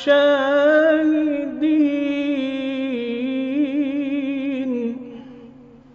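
A man's solo voice in melodic Quran recitation (tajwid), drawing out the verse's last word 'ash-shahidin' as one long ornamented note with a wavering trill near the end, then fading out about five seconds in.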